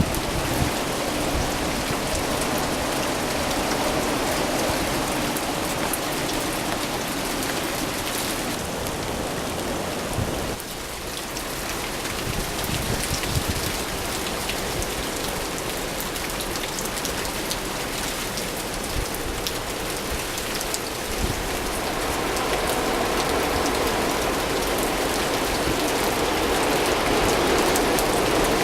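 Rain falling steadily and spattering on surfaces during a winter storm, easing briefly about ten seconds in.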